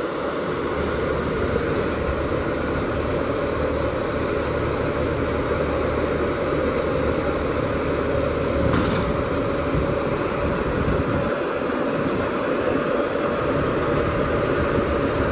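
Combine harvester engine running steadily as the tracked machine is driven up loading ramps onto a trailer, with a short click about nine seconds in.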